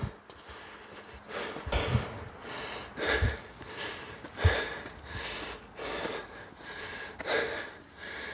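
A man breathing hard and fast as he climbs a long flight of stairs, a breath about every second, with a few dull footfalls.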